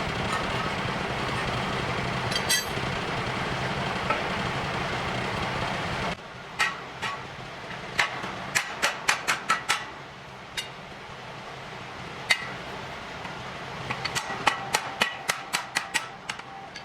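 A steady mechanical running sound with a low hum, which cuts off abruptly about six seconds in. Then come sharp hammer blows on metal: a few single knocks, a quick run of about eight strikes in the middle, and another quick run near the end.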